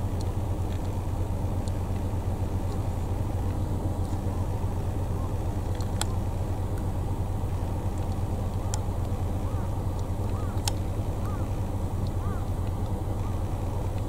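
Steady low motor hum, like a vehicle engine running, with faint short chirping calls repeating from about five seconds in and a few sharp clicks.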